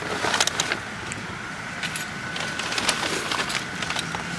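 Paper grocery bags rustling and knocking as they are shifted into a car's hatchback cargo area, with scattered clicks and light thuds. A faint steady high tone runs underneath for most of it.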